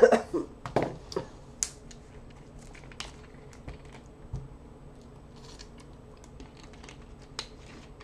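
Small cardboard box and its packaging being handled and opened: scattered light clicks, ticks and rustles. A few short, louder rough bursts come in the first second.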